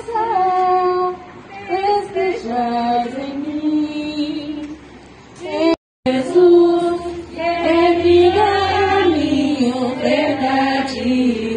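Women's voices singing a slow hymn in held notes. The sound drops out completely for a moment about six seconds in, at a cut in the recording.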